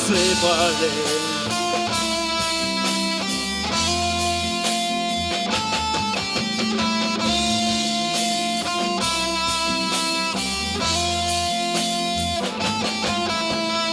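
A rock band plays an instrumental break between verses: a guitar plays a melody of held notes that steps from pitch to pitch, over a bass line and strummed guitar.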